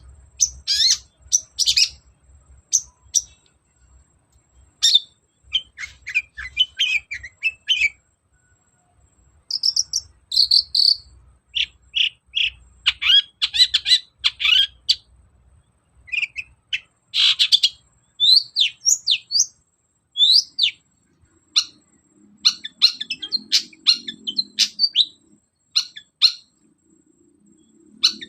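Long-tailed shrike (cendet) singing in short, rapid bursts of scratchy chattering notes and sharp up-and-down whistled slurs, broken by pauses of a second or two; the song is packed with mimicked calls of other birds.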